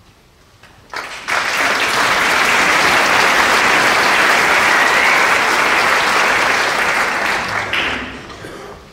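Concert audience applauding. The clapping starts abruptly about a second in, holds steady and dies away near the end.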